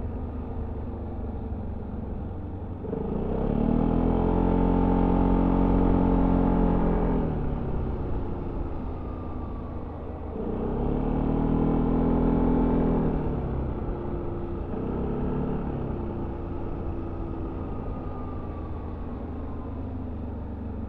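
Yamaha XMAX 300 scooter's single-cylinder four-stroke engine through its stock exhaust, heard on board while riding. Two throttle openings, each a few seconds long and rising in pitch before falling back, plus a shorter, smaller one after them. Between them the engine runs at a low, steady note.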